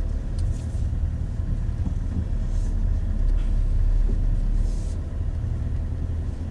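Campervan being driven, heard from inside the cab: a steady low engine and road rumble, with two brief swells of hiss.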